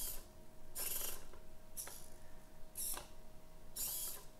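Hobby servo motors of a small Arduino-controlled robot arm whirring in short bursts about once a second as the arm steps between its programmed soft-limit positions.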